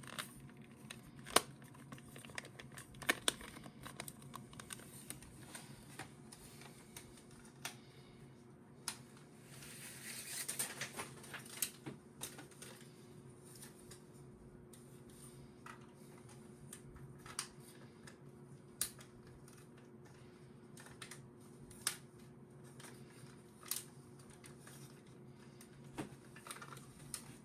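Hard plastic action-figure parts being handled and set down: scattered sharp clicks and knocks, with a brief rustle about ten seconds in, over a low steady hum.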